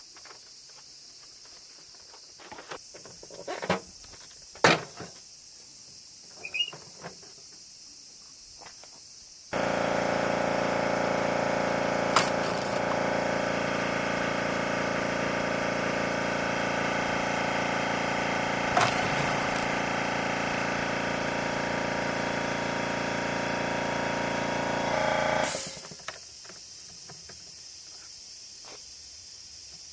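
A few clicks and knocks, then a motor starts abruptly about ten seconds in, runs steadily at one pitch for about sixteen seconds, and cuts off.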